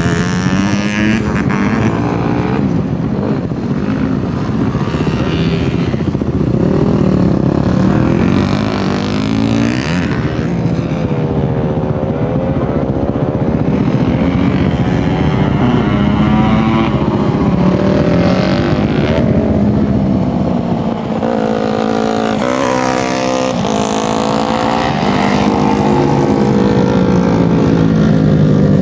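Several 250 cc dirt-track racing motorcycles running hard around the track, engine notes repeatedly rising and falling as the riders rev, shift and back off for the turns.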